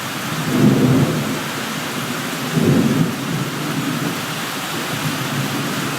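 Heavy rain pouring steadily, with two low rumbles of thunder, about half a second in and again about two and a half seconds in.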